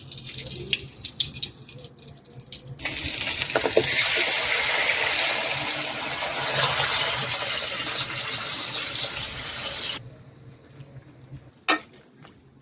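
Tap water running in a steady gush for about seven seconds, starting about three seconds in and cutting off sharply, after some light clicks and clatter. A few sharp knocks follow near the end.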